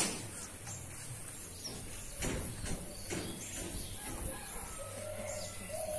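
Faint outdoor background with a single sharp click at the very start, a few faint knocks about two to three seconds in, and a faint held tone near the end.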